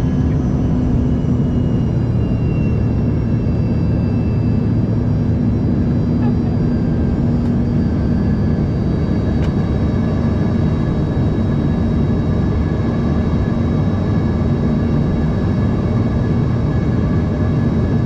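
Steady in-flight cabin noise of an Embraer ERJ-145LR jet: the drone of its rear-mounted Rolls-Royce AE 3007 turbofans and rushing airflow, heard inside the cabin, with a steady low hum under it.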